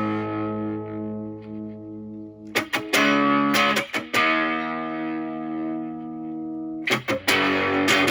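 Fender Stratocaster played through a Moollon Fuzz 14 silicon fuzz pedal (a BC108 Fuzz Face clone) into a Marshall Valvestate amp on crunch. Fuzzed chords are strummed and left to ring for a few seconds each, with fresh strums a few seconds in and again about seven seconds in.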